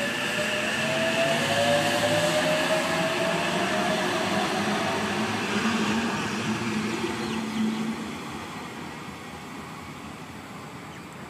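Oscar H-set electric multiple unit pulling away from the platform: its traction motor whine rises steadily in pitch as it accelerates over the rumble of the passing cars. The sound fades about eight seconds in as the train moves off.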